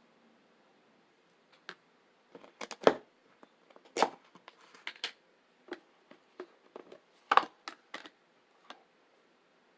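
Crisp chips being bitten and chewed: irregular sharp crunches, the loudest about three, four and seven seconds in.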